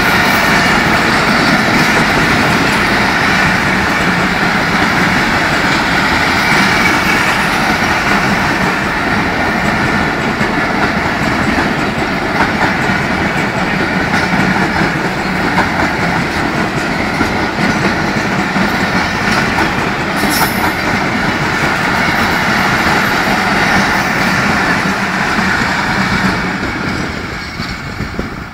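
Passenger coaches of a train rolling past close by: a steady, loud rumble of steel wheels running over the rails. It fades near the end as the last coach goes by.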